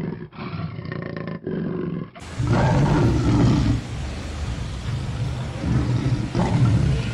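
Deep, low-pitched farm animal calls: several short bits broken by abrupt cuts, then from about two seconds in longer, louder calls, loudest around three seconds in and again near the end.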